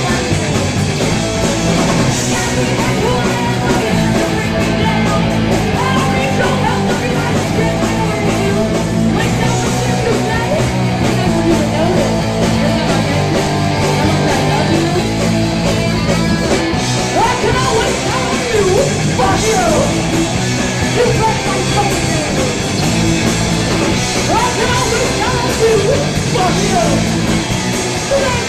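Live punk rock band playing loud: a woman singing into a microphone over electric guitars, bass guitar and a drum kit.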